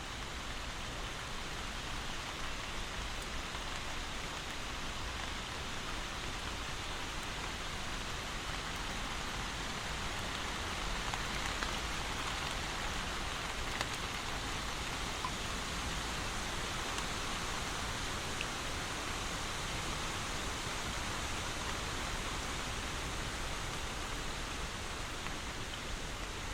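Steady rain falling, an even hiss of many drops with the odd single drop standing out.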